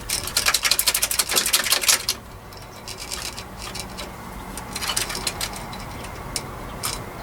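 Rapid metallic clicking and rattling for about two seconds as the cam chain is worked over the camshaft sprocket teeth of a Honda CB400 engine, then a few single clicks. The chain will not seat in line with the timing mark.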